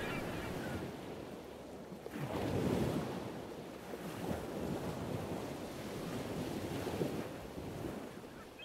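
Ocean surf: waves washing in and drawing back in slow swells, the biggest about two and a half seconds in, with a wind-like hiss.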